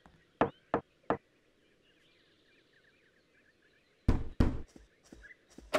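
Knocking on a wooden door: three light raps about half a second in, then a louder, heavier round of knocks about four seconds in.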